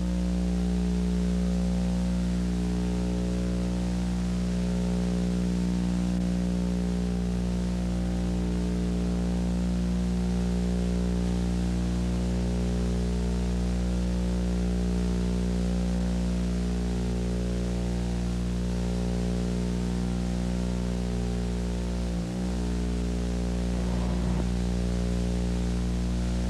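A steady buzzing drone with many overtones on one unchanging pitch, over a bed of hiss, briefly dipping about 22 seconds in.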